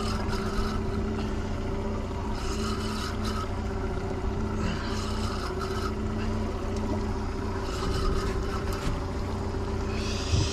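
Boat's outboard motor running steadily at low speed, with a few brief hissy sounds over it.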